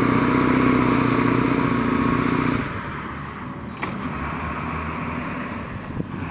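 A motor running with a steady hum that drops away about two and a half seconds in, leaving a fainter hum; a single click near the four-second mark.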